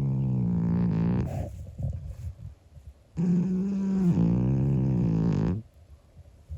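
A 25-year-old calico cat snoring in her sleep: two long, pitched snores, each dropping in pitch partway through, with quieter breaths in between.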